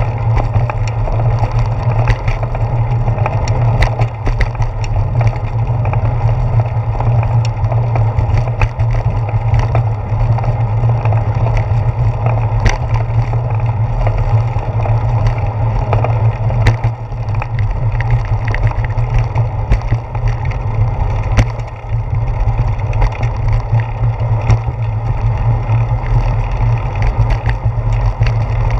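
Bicycle riding noise picked up by a handlebar-mounted GoPro Hero 4: a steady low rumble from the tyres and road vibration, with frequent small clicks and rattles from the camera mount shaking on the concrete path.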